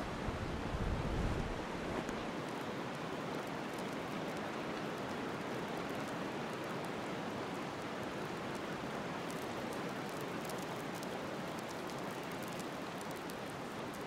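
Steady rushing hiss, with low rumbling on the microphone in the first two seconds and faint ticks and crackles in the last few seconds.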